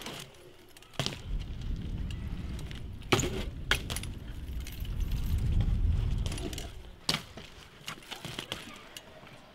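BMX bike rolling over concrete: a low tyre rumble that builds and fades by about six and a half seconds, with sharp metallic clacks and rattles from the bike about a second in, around three seconds and again at about seven seconds.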